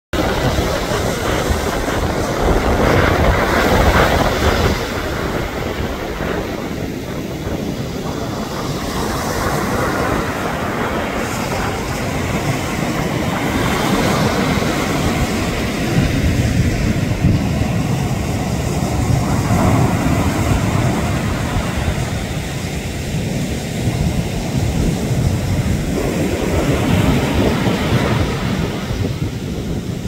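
Ocean surf breaking and washing up the beach: a loud, continuous rushing rumble that swells and eases as waves break.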